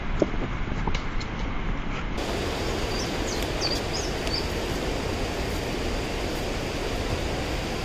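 Footsteps on loose rocks, a few sharp steps over a steady outdoor rush of noise. About two seconds in, the noise becomes a louder, even rush, with a few short high bird chirps soon after.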